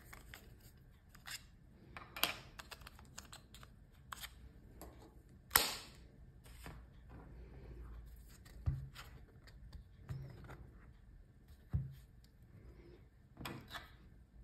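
Small plastic gadgets handled on a tabletop: a run of irregular clicks, taps and rustles as the parts of a wireless lavalier mic and its charging case are picked up and turned in the hands, with a sharper click about halfway through and a few dull knocks on the table.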